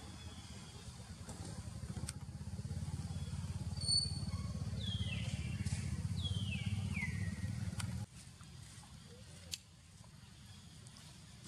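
Outdoor ambience: a steady low rumble with three short, high calls from an animal that fall in pitch, about five to seven seconds in. The rumble cuts off suddenly about eight seconds in, leaving a quieter background with a single click.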